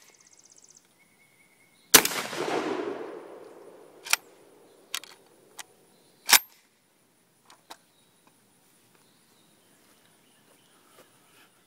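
A single 12-gauge blast from a Saiga 12 semi-automatic shotgun firing a low-brass field load, about two seconds in, echoing away over about two seconds. Several sharp metallic clicks and one louder clack follow as the action is handled; the shooter finds this light load almost, but not reliably, cycling the action even on the gas plug's highest setting.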